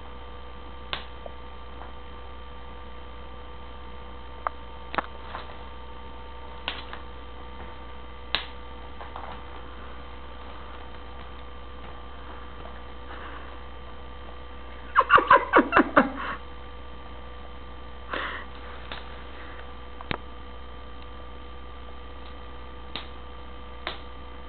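Steady electrical mains hum, with scattered single clicks and knocks as a cat plays with a toy, and a burst of about seven quick rattling clicks about fifteen seconds in.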